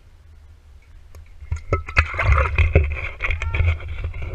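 Whiskey glugging and gurgling out of a glass Seagram's 7 Crown bottle as a man drinks straight from the neck, picked up from right on the bottle. It starts about a second and a half in and goes on in uneven gulps, with a few knocks against the glass.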